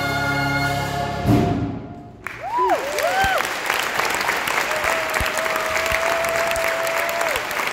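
Music ends on a sustained chord about a second in. After a short hush, an audience bursts into applause with rising-and-falling whoops and one long held cheer.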